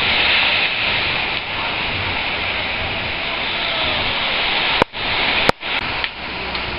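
Ocean surf washing up the beach, a steady hiss. About five seconds in, the sound cuts out twice with a sharp click.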